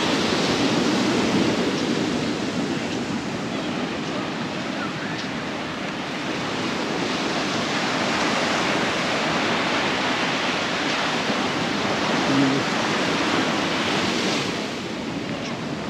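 Sea surf breaking and washing up a sandy beach, a steady rush that swells and eases over several seconds.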